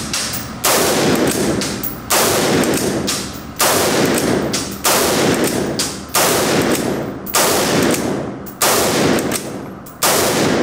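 AR-15 rifle fitted with a Kali Key bolt, which makes it a hand-cycled bolt-action, fired eight times at a steady pace of roughly one shot every second and a half. Each shot is loud, with a long echoing decay in the indoor range.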